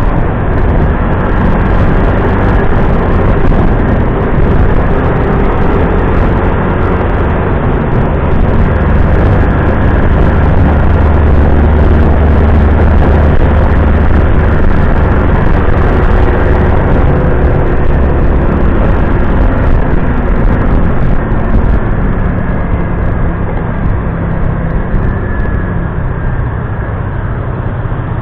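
Motorcycle riding in city traffic, heard from a handlebar-mounted camera: a steady rush of wind and road noise with the engine running underneath. It is heaviest at the low end around the middle and eases a little near the end.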